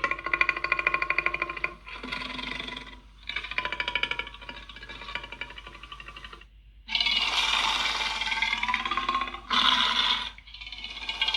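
A series of monster roar sound effects for the kaiju Skell Sol: about six rough, pitched calls one to three seconds long, with brief breaks between them.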